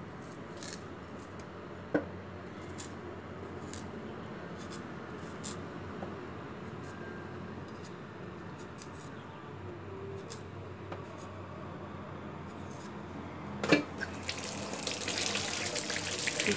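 A potato peeled by hand over a stainless-steel sink: light, scattered scraping strokes, with a sharp knock about two seconds in and a louder knock near the end. Then a tap is turned on and water runs into the sink, to rinse the peeled potato.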